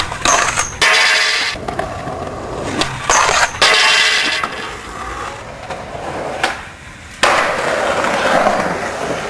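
Skateboard on street spots: sudden loud scrapes and impacts of the board sliding a metal handrail and landing, with wheels rolling over concrete between them. The loudest bursts come about a second in and around three seconds in.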